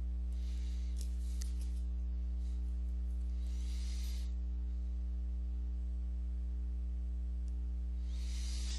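Steady electrical mains hum in the recording, a low drone with a stack of even overtones, with a few faint soft hisses over it.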